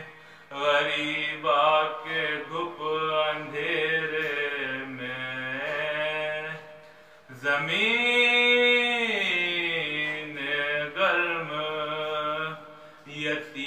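A man's solo voice chanting an Urdu Muharram salam, a mourning lament, with no instruments, in long drawn-out melodic phrases. Just past the middle a long held note rises and then falls.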